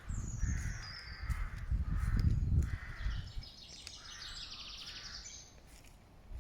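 A crow cawing several times in harsh, rough calls, about four in all. A smaller songbird sings at the same time: a high falling whistle at the start, then a fast high trill in the middle. A low rumble sits underneath, loudest about two seconds in.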